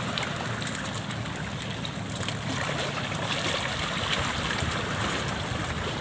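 Steady rushing outdoor noise of a seashore, wind and water, without any single distinct event.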